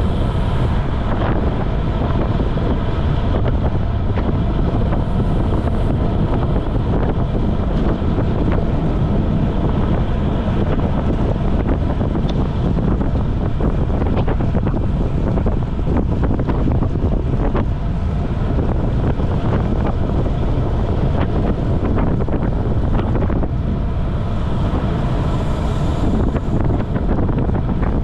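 Steady wind rushing and buffeting over the microphone of a camera mounted on a road bike moving at about 20 to 30 mph.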